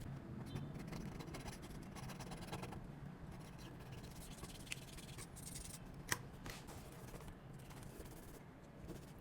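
Faint scraping and scratching of small repair tools working on an iPhone 12 Pro Max, with a few light clicks in the second half.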